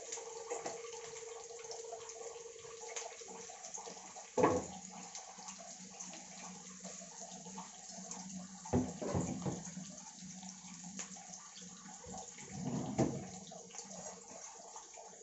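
Sliced onions frying in hot oil in a kadai: a steady sizzle with fine crackles. A sharp knock comes about four seconds in, with clunks of cookware around nine and thirteen seconds.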